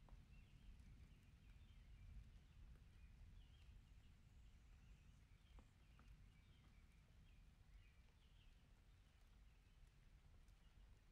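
Near silence: a faint low rumble with faint, short, high bird chirps repeating about once a second.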